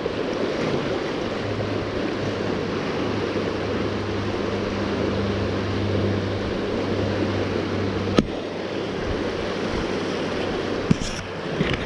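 Steady rush of water flowing along a concrete aqueduct channel. A low steady hum sits under it for several seconds and stops with a sharp click about eight seconds in.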